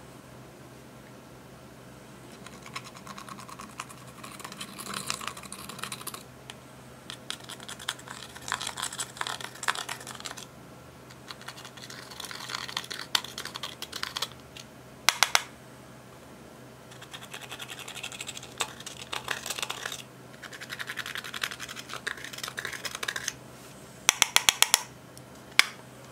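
Pressed eyeshadow being scraped out of a plastic palette's pans with a small tool, in repeated spells of dry scratching a few seconds long. Quick runs of sharp clicks come about halfway through and again near the end.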